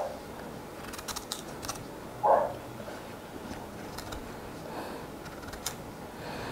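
A kitchen knife paring the peel off a hand-held daikon radish: faint, scattered small clicks and scrapes of the blade on the skin.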